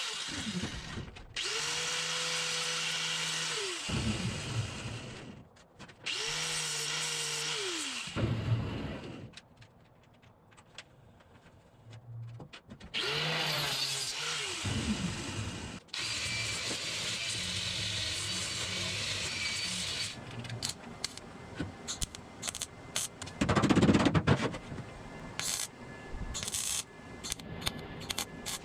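A handheld power tool on the Beetle's rusty body metal, run in three short bursts. Each burst spins up to a steady whine and winds down when released. Near the end come a run of sharp clicks and taps.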